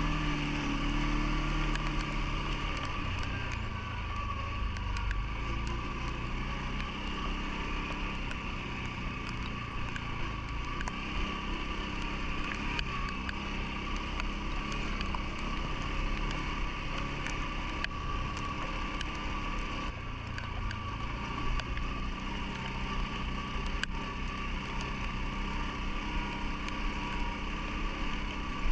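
CFMoto ATV engine running while riding, its pitch rising and falling with the throttle. A steady high whine runs under it, with scattered small ticks.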